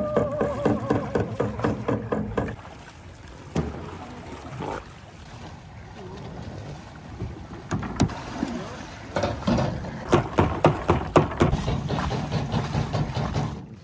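Water splashing and knocks around a small fishing boat, with clusters of sharp knocks and splashes at the start and again near the end.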